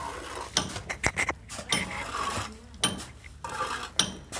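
Hand hammer striking a chisel to chip masonry: irregular sharp metallic clinks, several close together about a second in and single ones later, with rasping noise between some strikes.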